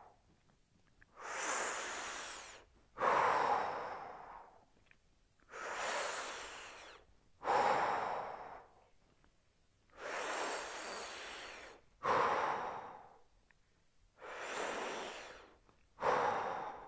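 A man breathing slowly and deeply in and out, about four full breaths, each breath a long rush of air.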